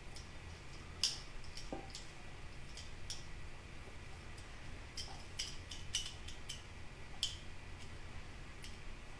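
Potato peeler shaving flakes off a wedge of Parmigiano Reggiano: a series of short, faint scraping strokes at irregular intervals.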